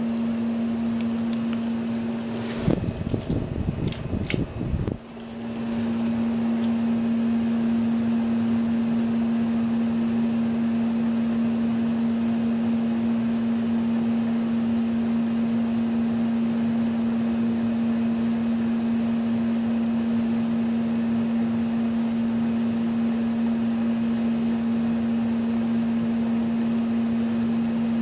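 1987 Lasko 3600L ceiling fan running with a steady motor hum. A few seconds in there is a short stretch of irregular knocks and clatter, after which the steady hum returns.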